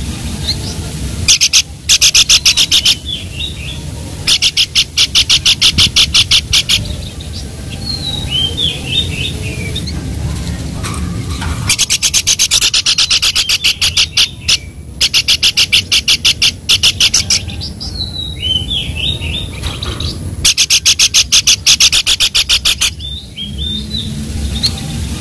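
Songbird calls: loud fast rattling trills of about ten notes a second, each lasting one to three seconds and repeating about six times, with short chirps in between.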